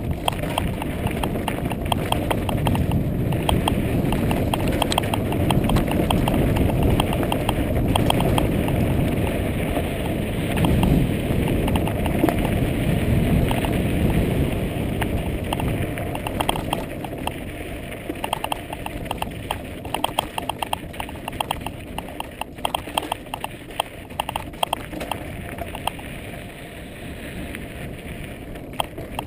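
Mountain bike riding a rocky desert dirt trail: a steady rumble of wind on the microphone and tyres on dirt, louder in the first half, with irregular rattling clicks from the bike jolting over rocks that stand out more in the second half.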